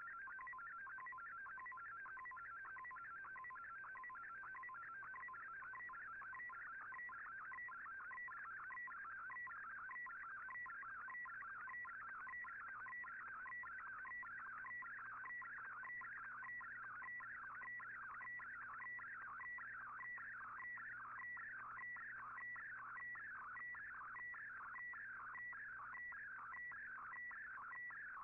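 Shortwave Radiogram picture transmission on 15770 kHz heard through an Icom IC-R8600 receiver: a warbling data signal of tones between about 1 and 2 kHz, sweeping about twice a second as the image is sent line by line.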